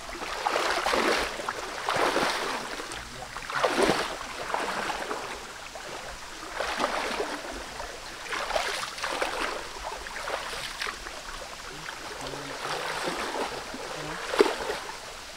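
Legs wading through thigh-deep creek water: a run of sloshing splashes, roughly one a second, over the flow of the stream, with a sharp knock near the end.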